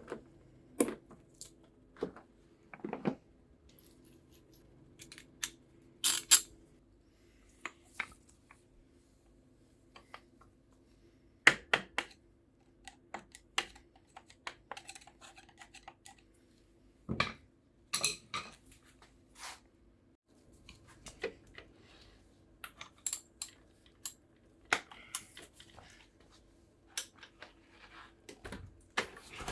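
Irregular clicks, clinks and knocks of metal tools and parts being handled while a Bosch Performance Line CX Gen 2 e-bike motor is taken apart, over a faint steady hum.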